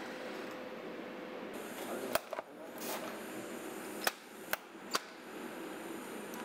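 Steady hiss of a welding arc on stainless steel flat bar, with five sharp clicks or taps through the middle.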